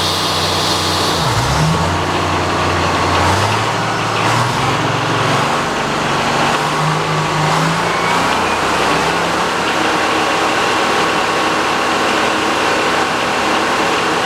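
Sawmill power-unit engine running with the big circular saw blade spinning. The engine's pitch dips and climbs over the first several seconds, then settles into a steady run.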